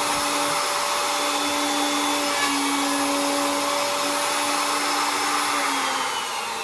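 A handheld fixed-base electric router running steadily at full speed while it bores a marble hole in a wooden board. Near the end it is switched off and its whine falls in pitch as the motor spins down.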